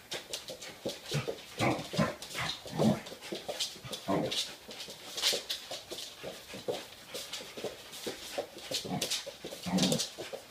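Puppy making short excited vocal noises again and again while tugging on a rope toy, with sharp clicks, likely its claws scrabbling on the hardwood floor.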